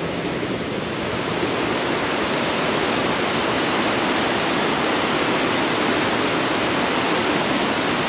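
Rushing stream water running steadily, its flow swollen after rain; the rush grows a little louder over the first few seconds.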